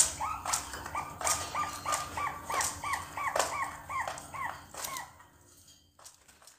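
Young zebra doves, about two months old and still learning to call, giving a rapid run of short hooked coo-like notes, about three a second, with sharp clicks mixed in. The notes stop about five seconds in.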